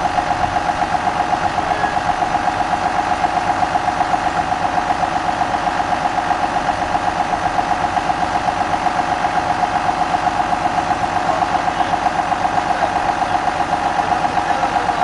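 Tractor's diesel engine running steadily with an even, fast throb and a steady high hum over it.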